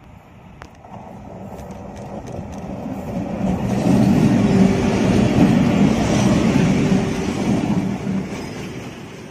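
Electric freight train approaching and passing close by: a twin-section electric locomotive with its wagons behind. The locomotive's steady hum and the rumble of the wheels on the rails build to their loudest about four to six seconds in, then fade as it goes by.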